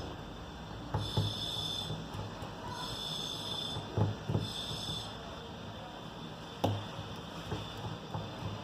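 Small repair tools clicking and tapping against a smartphone's parts during disassembly: a few scattered light clicks over a faint steady background hum.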